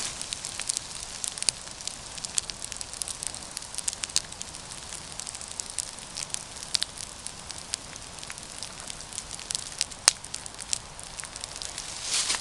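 Campfire crackling, with frequent small pops and snaps over a steady hiss and one sharper, louder pop about ten seconds in.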